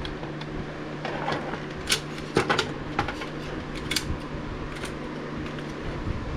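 Scattered light clicks and clinks of a drill bit set being handled, about one every half second, with a few louder ones near the middle. A steady fan hum runs underneath.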